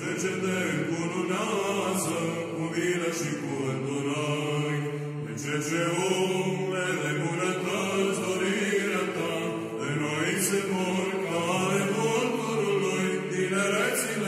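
Orthodox chant used as intro music: voices singing a slowly moving melody over a steady low drone held underneath.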